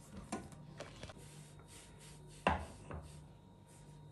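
Spatula stirring milk in a metal pot, scraping and knocking against the pan: a few light clicks, then two louder knocks about two and a half and three seconds in.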